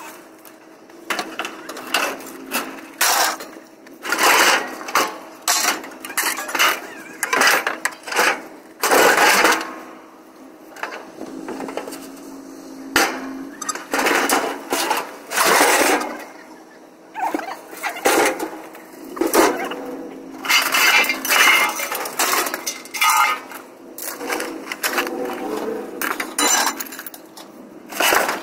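Scrap metal being unloaded by hand from a trailer: repeated clanks, bangs and scraping as metal chairs, grills and other junk are dragged off the trailer bed and dropped onto the pile, in irregular bursts.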